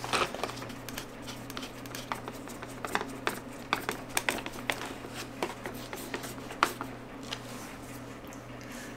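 Scattered light clicks and taps of hard plastic as an NC Mazda MX-5 Miata's centre console trim panel is handled and a screwdriver works the shift boot frame's tabs into their slots, over a faint steady low hum.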